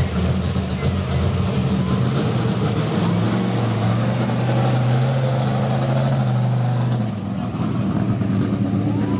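1965 Chevrolet mega truck's engine running hard under load on a truck-pull run. Its pitch climbs about three seconds in, holds, then drops back about seven seconds in.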